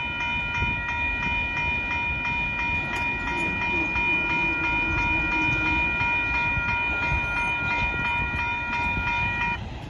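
Union Pacific locomotive air horn sounding one long, steady chord of several tones over the rumble of the passing freight train, cutting off sharply near the end.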